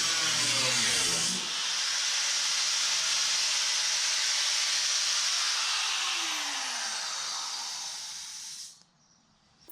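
A loud, steady hiss of shop equipment, with a power tool's pitch falling as it winds down in the first second and a half. The hiss fades and stops about nine seconds in.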